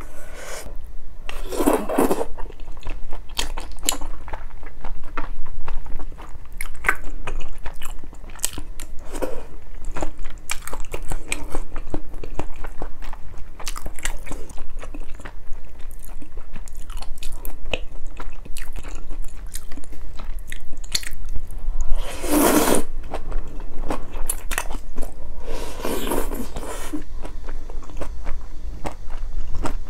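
Close-miked mouth sounds of a person eating malatang: steady wet chewing clicks of chewy noodles, with louder slurps of noodles and broth about 2 seconds in, at about 22 seconds and again at about 26 seconds.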